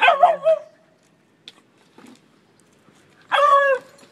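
Beagles barking and yipping as they play-wrestle: a quick flurry of yips right at the start, then a single longer bark about three seconds in.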